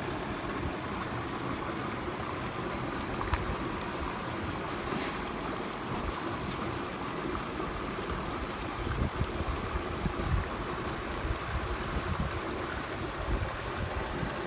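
Steady rushing of a mountain stream, with wind buffeting the microphone in low gusts, strongest around the middle and near the end.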